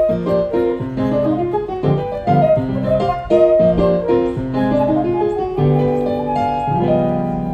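Live instrumental Colombian music from a small ensemble: a quick melody of short notes over chords, settling onto a held chord about a second before the end.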